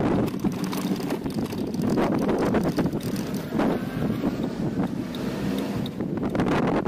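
Wind buffeting the microphone over the tyre noise of an electric scooter riding on wet cobblestones, with a constant irregular rattle and bumping from the stones.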